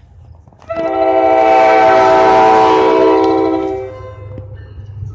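Train horn sounding one long blast of about three seconds, starting about a second in, a chord of several notes at once, as the engineer honks for the person filming. A low rumble runs underneath, and a second blast begins just as it ends.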